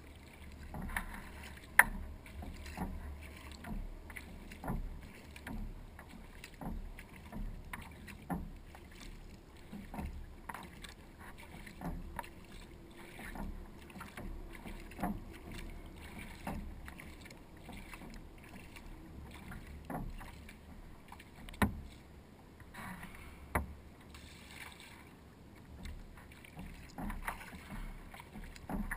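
Kayak paddle strokes dipping and splashing in calm lake water, with drips and small ticks about once a second. A few sharper knocks stand out.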